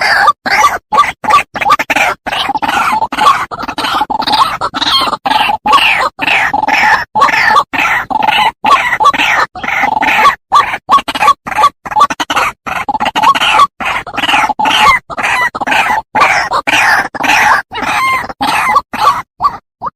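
White-breasted waterhen (ruak-ruak) calls in a bird-lure recording: a rapid, continuous run of harsh croaking notes, broken by frequent brief gaps.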